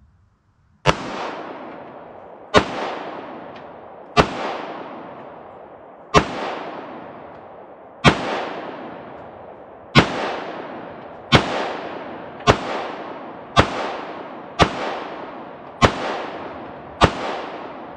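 Glock 43 9 mm pistol firing twelve shots, about two seconds apart at first and then about one second apart, each followed by a long echo dying away: a full 12-round ETS extended magazine emptied.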